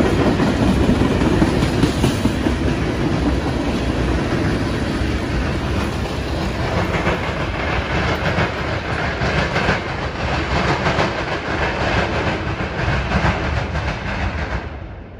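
Freight train of tank cars rolling past: a steady rumble of steel wheels on the rails with clickety-clack over the rail joints. It drops away sharply near the end as the train recedes.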